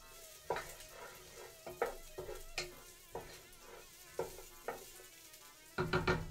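Diced onions sizzling in hot olive oil in a pot while a wooden spoon stirs them, knocking and scraping against the pot several times, with the loudest cluster of knocks near the end.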